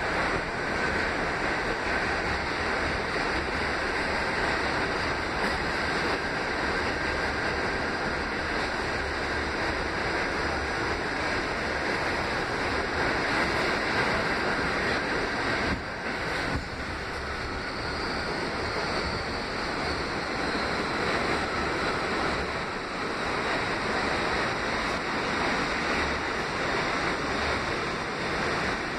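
Inside an R68A subway car running along the line: a steady rush of wheel, track and car noise, briefly dipping about halfway through.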